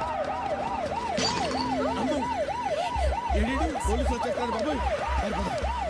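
Police car siren wailing in a fast yelp, rising and falling about four times a second. About three seconds in, a deep pulsing bass beat of music joins it.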